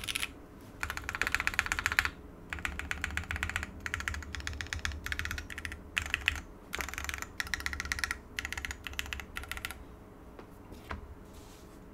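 Hex 3C mechanical keyboard with lubed, Cherry-topped JWICK Black linear switches on a full FR4 plate and DCX keycaps, typed on in quick bursts of keystrokes with short pauses. Near the end the typing thins to a few single key clicks.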